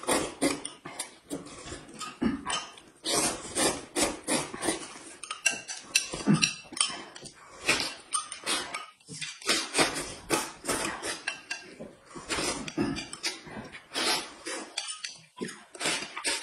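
Close-up eating sounds: chewing and slurping, with spoons and chopsticks clinking against bowls and plates in quick irregular clicks.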